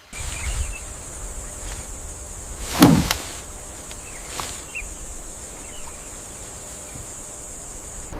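Steady high-pitched insect buzz in natural surroundings, with one sharp knock or snap about three seconds in and a few fainter ticks.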